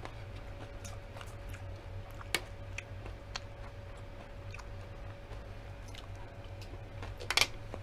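A person chewing and biting nachos with mango and vegetables, wet mouth clicks and small crunches over a steady low hum, with one sharp click a couple of seconds in and a louder brief burst near the end.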